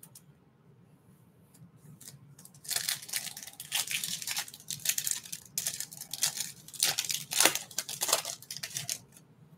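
A foil trading-card pack being torn open and crinkled by hand. After a quiet start, a run of sharp tearing and crinkling begins about three seconds in and lasts until just before the end.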